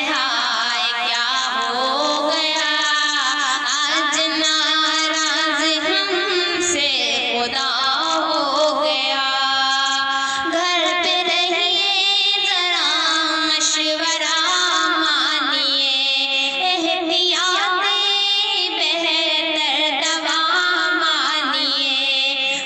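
A woman singing a slow Urdu devotional nazm, drawing out long notes with wavering ornaments.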